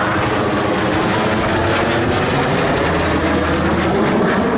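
Blue Angels F/A-18 Hornet jets flying past, a loud, steady jet noise.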